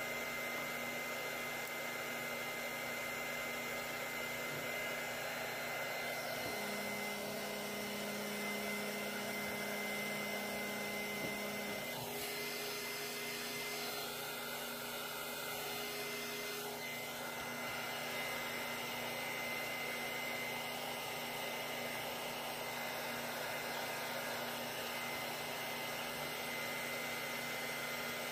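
Steady blowing noise with a thin high whine, as of an air blower running; a low hum joins for about five seconds a quarter of the way in.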